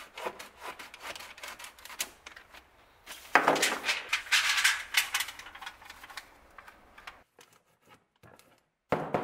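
Stainless steel heat-treating foil crinkling and crackling as a sheet is pulled from its box and folded into a pouch around a knife blank. It is loudest a few seconds in, fades, and drops to near silence about seven seconds in before starting again near the end.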